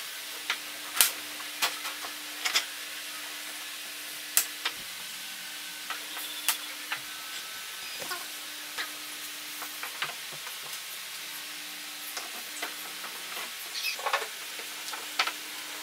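Scattered light taps and clicks of wooden chair parts being set down and handled on a workbench, with a rag rubbing over the wood, over a faint hum.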